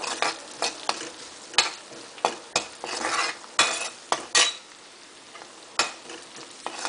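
A steel spoon stirring sliced onions and garlic frying in oil in a wok, clacking and scraping against the pan at irregular intervals over a steady sizzle.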